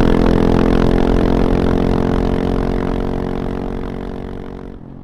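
KTM 690 SMC-R's single-cylinder engine running at steady revs through an Arrow Race-tech exhaust with the dB killer fitted. It fades away over the last couple of seconds.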